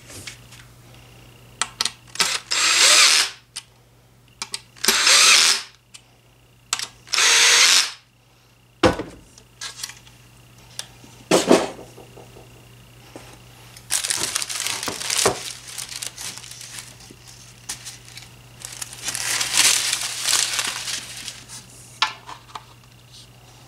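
Power drill driving screws into ceiling fan blades, run in three short bursts, then two longer, rougher runs near the middle and toward the end, with small clicks and clatters in between.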